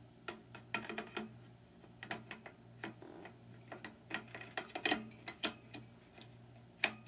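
Irregular light clicks and taps as fluorescent tubes are handled and seated into the fixture's plastic lampholders, with a few sharper clicks near the end.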